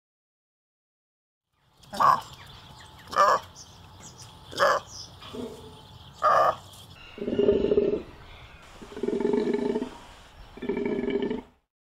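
Golden takin calling: four short, sharp calls about a second and a half apart, then three longer, lower calls, each just under a second.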